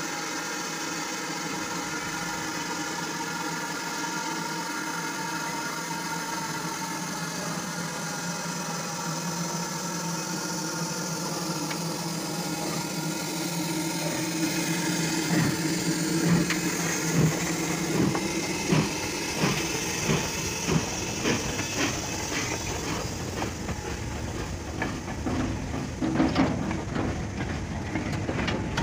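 A slow goods train of steel mineral wagons hauled by a BR Standard Class 2MT 2-6-0 steam locomotive: a steady hum as it approaches, then, from about halfway, sharp wheel clacks over rail joints about once a second as the wagons roll past.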